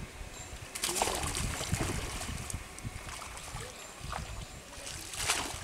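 Pond water splashing and dripping as a cast net is hauled out of the water by hand, with splashes about a second in and again near the end.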